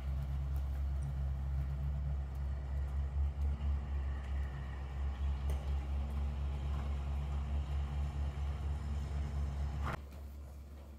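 Steady low mechanical rumble with a few held low tones, dropping away suddenly about ten seconds in.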